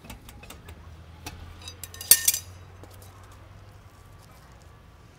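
Metal clinking and light knocking from work on a heavy truck's rear wheel hub, with one louder sharp clank about two seconds in, over a faint steady low hum.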